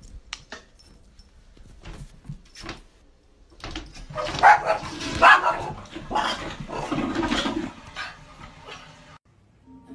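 Small dog barking several times over a long rushing noise, which starts about three and a half seconds in and stops about nine seconds in; before that only faint clicks.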